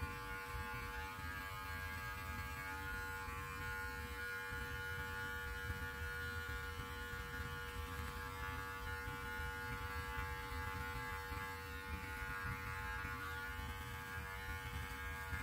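Electric hair clippers running with a steady, even buzz as they trim the hair on the neck beneath a long beard.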